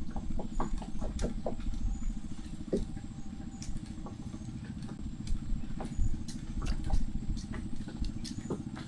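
A small boat's motor running steadily, with many sharp clicks and taps over it.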